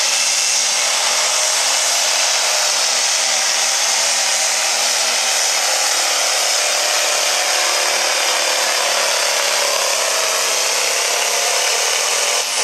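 John Deere Light Pro Stock pulling tractor's turbocharged diesel engine running flat out under full load as it drags the weight sled: a loud, steady, high-pitched howl.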